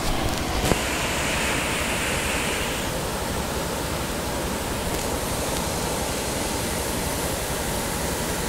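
Steady rushing of a boulder-strewn mountain river's white-water rapids, the river running high with rainwater. A brief click just under a second in.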